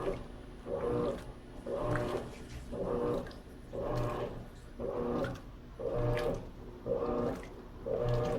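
Electrolux LT13B top-load washing machine in its agitation stage: the motor hums in a pulse about once a second as the agitator swings back and forth through the water.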